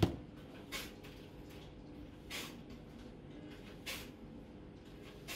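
A soft thump as a smartphone is set down on a tabletop, then short, faint hissy puffs about every one and a half seconds over a low steady hum.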